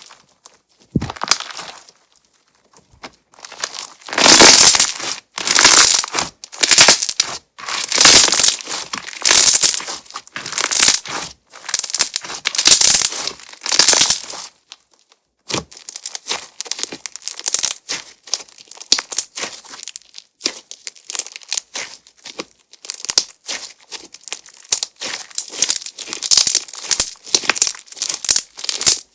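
Crunch-texture slime being squeezed and pressed by hand, crackling and popping loudly. About four seconds in come a series of long crackling squishes, each lasting up to a second; after a short pause near the middle they turn into quicker, lighter crackles.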